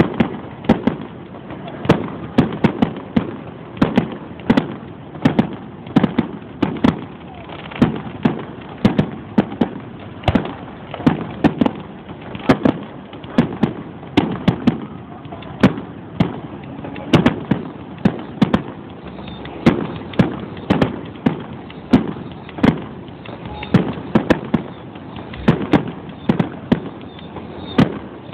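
Fireworks display: a continuous run of sharp bangs from shells bursting, about one or two a second, with no let-up.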